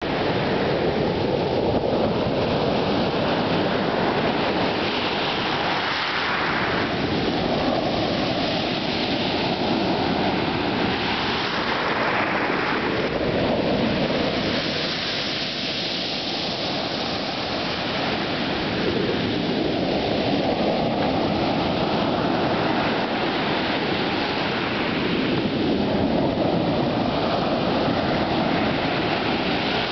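Sea surf breaking on a pebble beach: a steady rush of water that swells every few seconds as each wave crashes and washes up over the pebbles.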